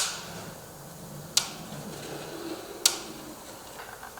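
Caulking gun's trigger clicking as silicone caulk is pushed out, three sharp clicks about a second and a half apart.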